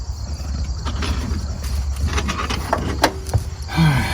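Scattered light clicks and knocks of hands fitting interior trim and screw pieces into a truck cab, one sharp click about three seconds in, over a steady low hum. A short grunt-like vocal sound comes near the end.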